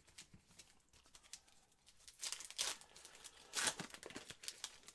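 A foil trading-card pack wrapper crinkling and being torn open, with two louder rips about two and a quarter and three and a half seconds in among small crackles.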